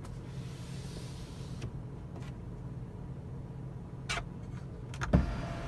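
A car's electric sunroof being worked from its overhead switch: a few faint clicks, then a sharp click about five seconds in as the sunroof motor starts a steady whine to tilt the glass. A low steady hum runs underneath.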